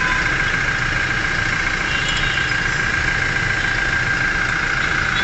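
Toyota engine idling steadily, heard from underneath the vehicle, with a constant high whine running through it. The engine is kept running for the automatic transmission fluid level check.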